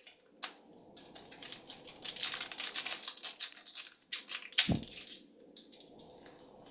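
A plastic blind bag being torn open and crinkled by hand, in scattered rustles and small clicks with a busier stretch of crinkling in the middle, and one sharp knock a little before the end.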